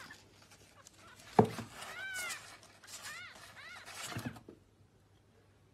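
Newborn kitten mewing, a few thin high calls that rise and fall in pitch. A sharp thump about a second and a half in, the loudest sound, and a softer knock near four seconds.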